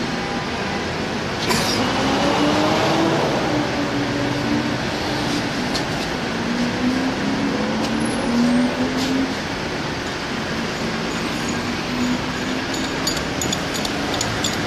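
Steady, loud noise of a running engine and street traffic, with faint wavering voices under it.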